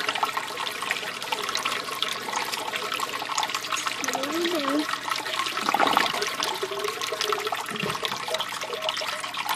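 An aquaponics bell siphon draining the grow bed down its standpipe: a steady rush of water, louder for a moment about six seconds in. The siphon is still running as the water level drops toward the point where it should break.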